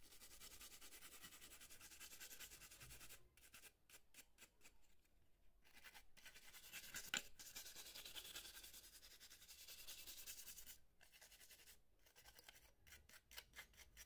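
Faint, quick rubbing strokes on a remote control's printed circuit board as its key contact pads are scrubbed clean, thinning out about three seconds in and again near eleven seconds.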